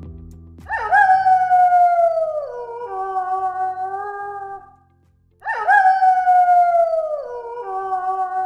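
Wolf howling: two long howls about five seconds apart, the same in shape, each rising quickly, sliding slowly down in pitch, then dropping to a lower held note. Quiet background music underneath.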